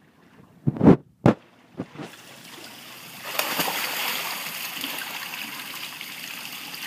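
A few loud, short thumps in the first two seconds. From about three seconds in, steady splashing and rushing water as a swimmer moves through the pool.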